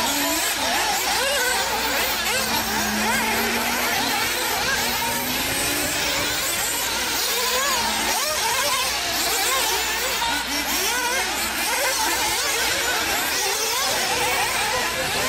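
Several radio-controlled 4x4 buggies racing together, their motors whining up and down in pitch as they accelerate and brake round the track.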